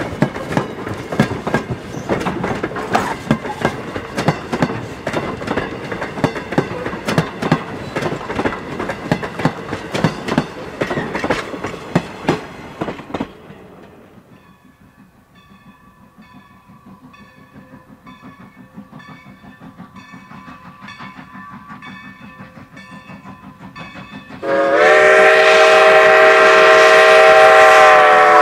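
Passenger coaches rolling past close by, their wheels clicking over the rail joints. Then comes a quieter stretch with a faint exhaust beat about once a second from an approaching steam locomotive. About 24 seconds in, a loud chime steam whistle blows one long blast, its pitch sliding up briefly as it opens.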